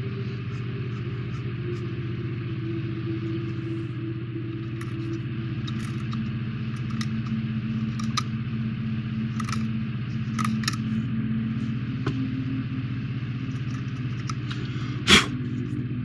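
A steady low machine hum with tones that drift slowly in pitch, under scattered light clicks and taps from a plastic model kit being handled, and one sharp click near the end.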